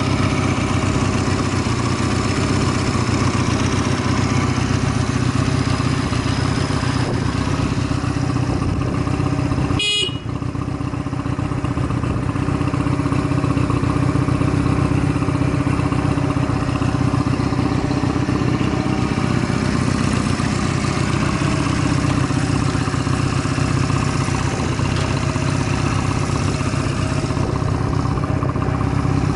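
Honda Rebel 250 (MC13) air-cooled parallel-twin engine running steadily at idle, with no abnormal noises. There is a brief dip in the sound about ten seconds in.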